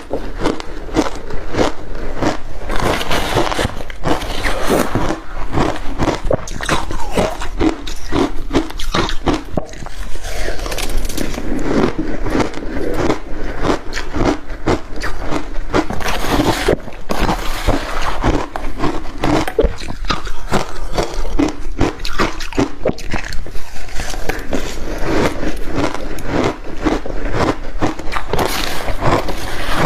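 Crushed ice with passion fruit being bitten and chewed close to the microphone: loud, dense, rapid crunching and crackling, bite after bite.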